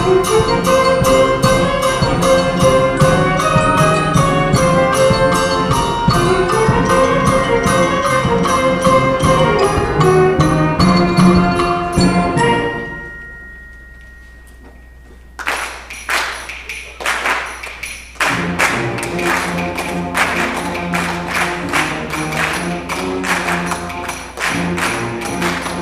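School concert band playing, winds with mallet percussion. About halfway through the music breaks off and dies away to one faint held note. Then sharp percussion strikes start it again, and the full band comes back in a few seconds later.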